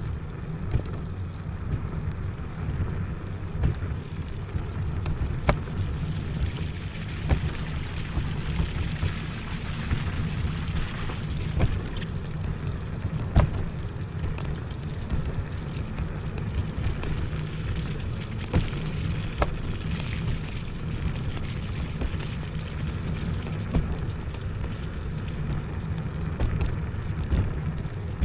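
Riding noise from an IO HAWK Legacy electric scooter on a rough off-road track: a steady low rumble of wind on the microphone and tyres, with scattered knocks and rattles from bumps.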